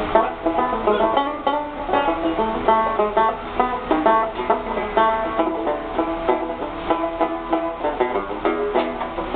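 Six-string banjo (ganjo) being picked, a continuous run of bright plucked notes.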